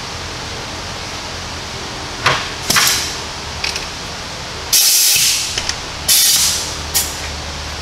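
Hand-lever grease gun being pumped into a new ball joint's grease fitting: several short hissing spurts, the longest and loudest about five seconds in, as the joint takes grease. A shop exhaust fan hums steadily underneath.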